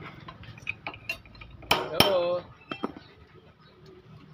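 Metal tools and engine parts clinking and tapping as a round part is pried out of a motorcycle crankcase, with a loud metallic clank about two seconds in.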